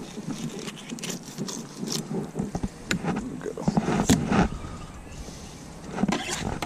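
Fillet knife working along a bluefish's backbone and the fish being handled on a plastic cutting board: irregular scraping with clicks and soft knocks.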